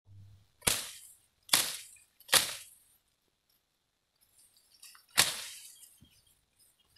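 A sickle slashing into grass and brush: four sharp cuts, three in quick succession in the first two and a half seconds and a fourth about five seconds in, each followed by a short rustle of the cut stems.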